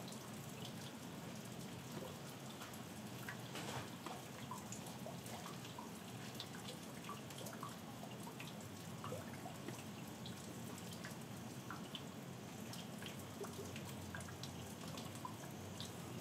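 Steady rain falling, with many separate drips of water ticking close by.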